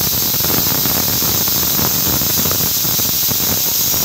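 Pressure cooker on a gas stove venting steam with a loud, steady hiss: the sign that it has come up to pressure.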